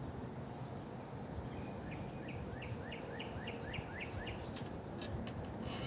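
A bird singing a quick run of about ten falling chirps, roughly three a second, over a steady low outdoor rumble; a few sharp clicks follow near the end.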